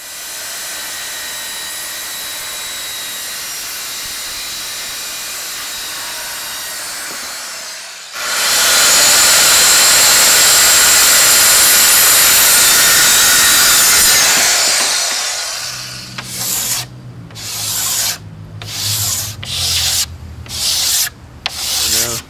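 Handheld circular saw running with a steady whine, then cutting through wooden planking about eight seconds in, much louder, before spinning down. After that comes hand sanding of a wooden board edge: short back-and-forth rubbing strokes, several a second apart.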